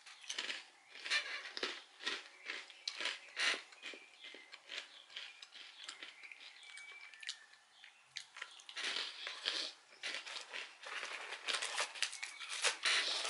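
Crisp, irregular crunching of a soy-sauce-coated rice cracker being bitten and chewed close to the microphone. In the later part, a denser rustle, like a snack wrapper being handled, joins the crunching.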